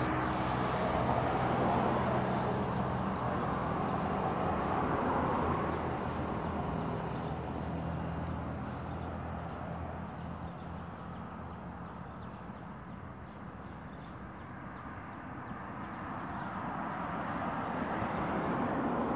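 Road traffic passing on a highway: a vehicle's engine and tyre noise loud at first, with a steady low engine hum, slowly fading over about a dozen seconds, then another vehicle approaching near the end.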